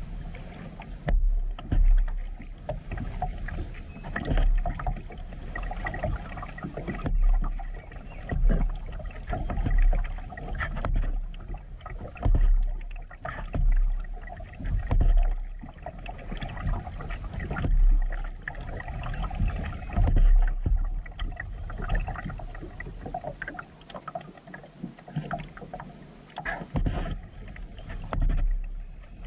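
Kayak paddling: the paddle dips and pulls through the creek water with splashes and drips, about one stroke every two seconds, over a low rumble of wind on the microphone.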